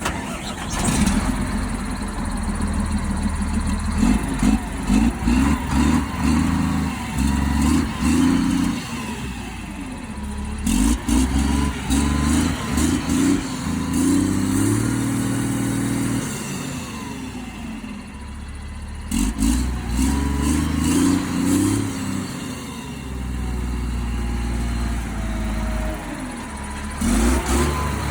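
Diesel truck engine with a newly replaced turbocharger being revved in repeated bursts of short throttle blips, the engine speed rising and falling between them, as it is checked for abnormal noises.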